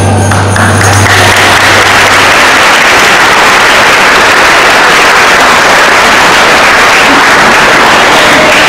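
Audience applauding loudly, a dense steady clapping, while the last low note of the song's backing music dies away in the first couple of seconds.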